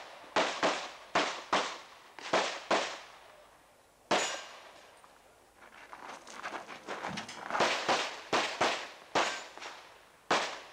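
Semi-automatic pistol fired in a practical-shooting course of fire: about fourteen sharp shots, mostly in quick pairs, with a pause of about three seconds near the middle before the shooting resumes.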